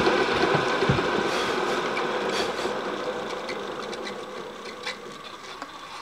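Milling machine spindle running with a chamfering cutter over a brass plate, starting abruptly, then fading steadily as the spindle winds down to a stop. A few light clicks near the end.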